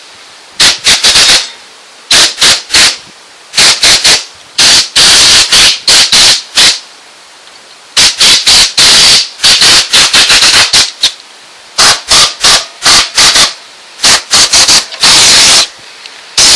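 Compressed-air blow gun on an air compressor hose, blowing dust out of a desktop PC case in short bursts: clusters of quick puffs mixed with longer hissing blasts of about a second, loud enough to overload the microphone.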